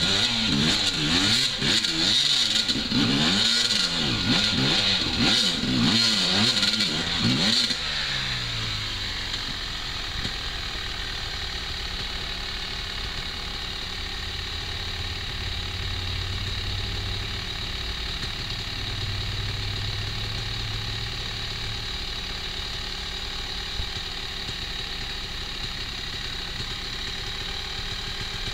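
Enduro motorcycle engine revving up and down again and again as it climbs a steep rocky trail, then from about eight seconds in running steadily and more quietly at low revs.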